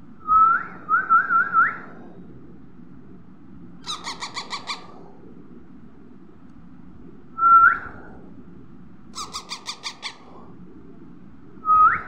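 Baby parakeets squawking while being hand-fed: loud short calls that rise sharply in pitch, a run of three just after the start, then single ones at about seven and a half seconds and at the end. Between them come two quieter runs of six or seven rapid chattering pulses.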